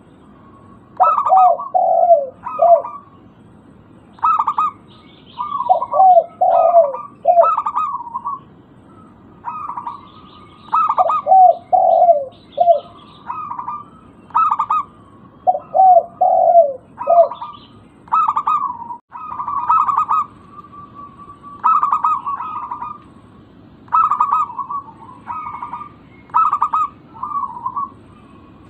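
Zebra doves (perkutut) cooing: phrase after phrase of quick, clipped coos about every one to two seconds, some phrases dropping to a run of lower notes.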